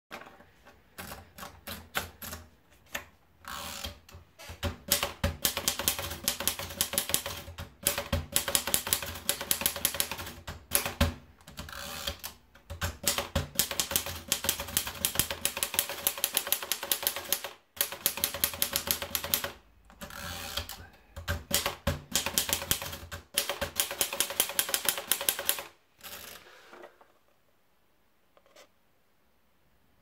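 Erika Model S portable manual typewriter being typed on: a few scattered clicks as the paper is fed in, then fast runs of clacking keystrokes broken by short pauses. The typing stops a few seconds before the end.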